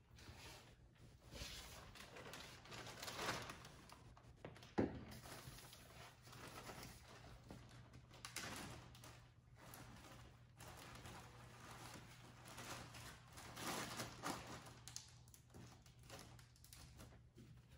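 Quiet handling noises of setting up a work counter: plastic bags rustling and small bottles and items being set down, with one sharp knock about five seconds in. A faint low room hum runs underneath.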